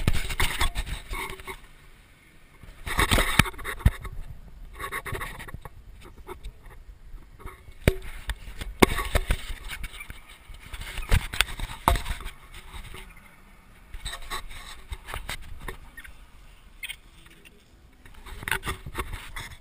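Handling noise on a small camera being grabbed, tumbled and carried: irregular rubbing and scraping against the microphone, broken by several sharp knocks.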